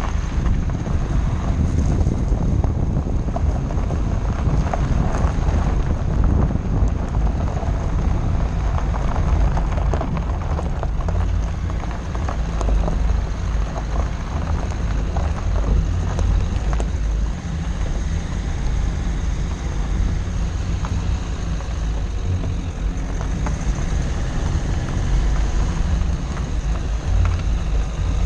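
Dacia Duster's tyres rolling and crunching over a loose rocky gravel track, with many small stone clicks over a steady low rumble, and wind buffeting the camera mounted on the outside of the car.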